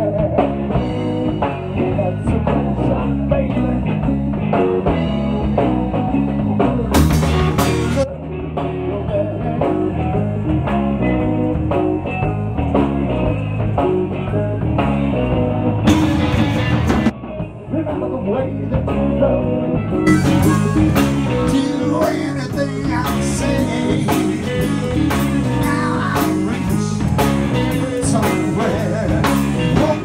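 A live band playing, with electric guitars, a steady beat and a singer's voice.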